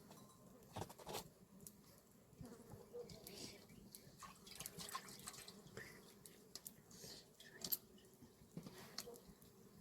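Faint, irregular small clicks and taps, with one sharper tap about three-quarters of the way through.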